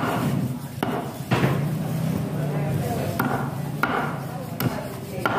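Heavy cleaver chopping through fish into a wooden chopping block: about seven sharp knocks at uneven intervals as the fish is cut into steaks.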